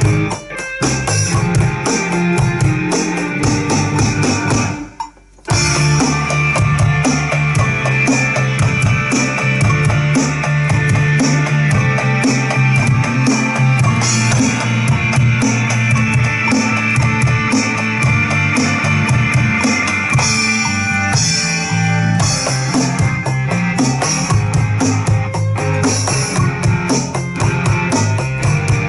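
Rock drum part played on a Roland electronic drum kit along with a rock backing track with guitar, at a steady beat. The music stops briefly about five seconds in, then comes straight back.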